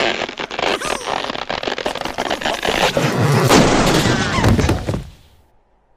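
Cartoon blast sound effect: a loud rushing boom that swells for a few seconds, loudest with a deep rumble about three to four seconds in, then dies away about five seconds in.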